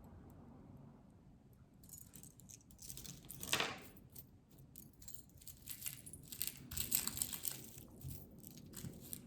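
Small pieces of metal jewelry clinking and jingling as earrings are picked up and handled: a scatter of light clicks and jingles that starts about two seconds in.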